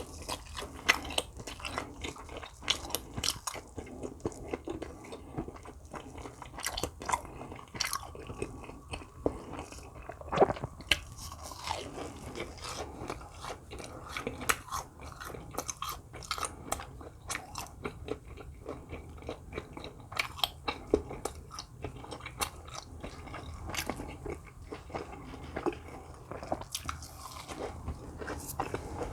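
Close-miked chewing and biting on crisp fried Korean snacks, hotteok or sweet rice donuts, with irregular crunches all through.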